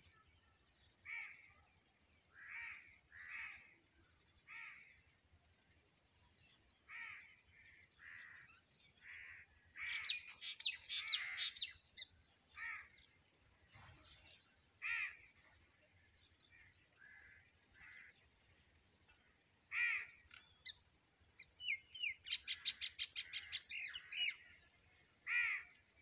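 Birds calling, chiefly crows giving repeated short caws. Two bursts of fast rattling calls, about ten seconds in and again about twenty-two seconds in, are the loudest part. A steady high-pitched tone runs underneath.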